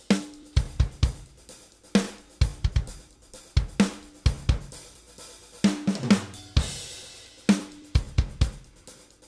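Raw multitrack recording of a rock drum kit played back without other instruments: kick and snare hits in a steady groove with cymbal crashes, the room mics giving each hit a long ringing tail.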